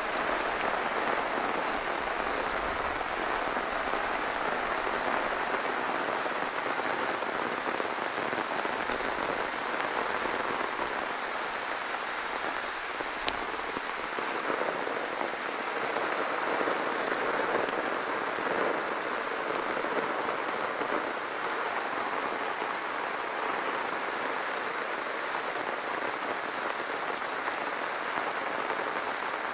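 Monsoon rain falling steadily as an even hiss of rain on surfaces, with one sharp tick about halfway through.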